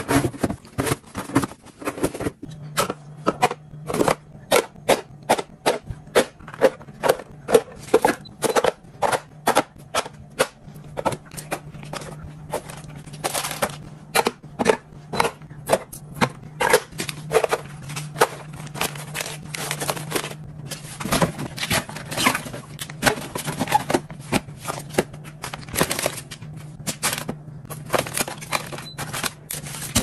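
Refrigerator being stocked by hand: a stream of small clicks, knocks and rustles as paper bags, plastic bottles and packs are set down on glass shelves, door bins and drawers. A steady low hum sets in about two and a half seconds in.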